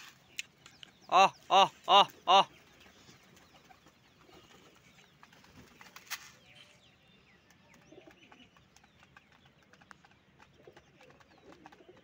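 Four short, loud pitched calls in quick succession about a second in, then faint ticking and rustling as domestic pigeons peck grain from a tray.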